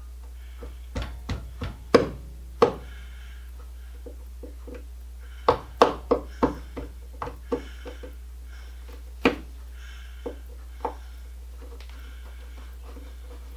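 Screwdriver blade tapped by the palm of a hand into the painted-over slots of a light switch's screws, chipping the paint out: irregular sharp taps with faint scraping between them, most of them in a quick cluster around the middle.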